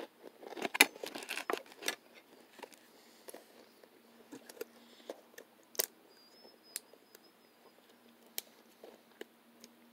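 Fork scraping and tapping on a paper plate while eating, a quick run of scrapes and clicks in the first two seconds, then a few single clicks.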